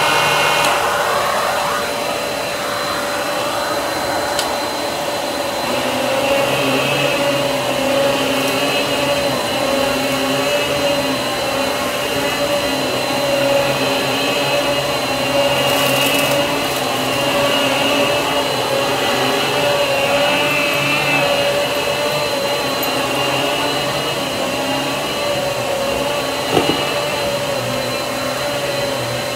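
Riccar Pizzazz canister vacuum running steadily with its electric power head, the brush head pushed back and forth across carpet. The motor's hum holds an even pitch throughout.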